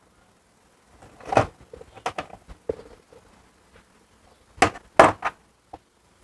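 Short clicks and knocks of long-nose pliers and metal spade terminal clips being worked onto a washing machine's control board in its plastic housing. A few scattered clicks, then the two loudest close together about four and a half to five seconds in.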